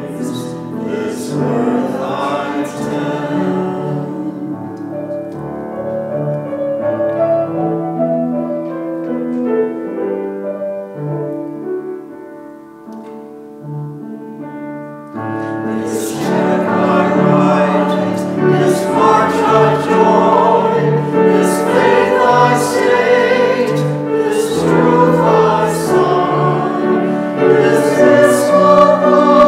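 A choir singing with musical accompaniment. It thins out and softens about halfway through, then comes back fuller and louder.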